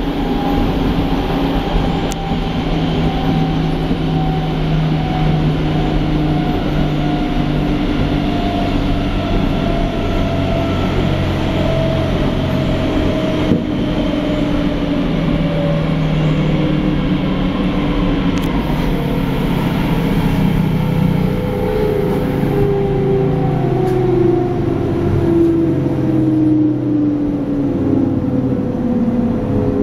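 Berlin S-Bahn class 480 electric train heard from inside the car while running: a loud, steady drone with rail noise. The traction motors' whine falls slowly in pitch as the train slows. The drone is an odd one.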